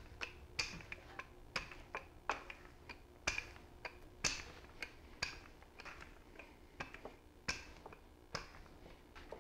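Wooden rolling pin working pizza dough on a floured countertop: a string of sharp clicks and knocks, about one or two a second, some trailed by a short scraping hiss as the pin rolls back and forth.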